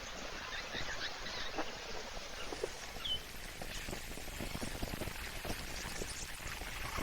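Waterhole ambience: irregular soft splashing and crackling water sounds over a steady outdoor hiss, busier in the second half, with one short bird chirp about three seconds in.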